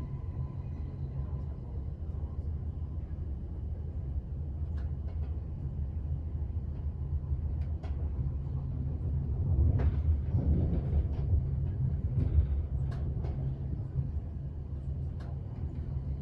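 Moving train heard from on board: a steady low rumble with scattered short clicks and knocks, growing louder for a few seconds about ten seconds in.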